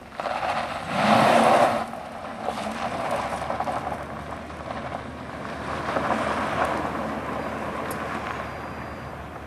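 Holden VT Commodore SS's 5.0-litre 308 V8 on the move, its engine mixed with road and wind noise. It is loudest for about a second near the start, then runs on steadily with a swell about six seconds in.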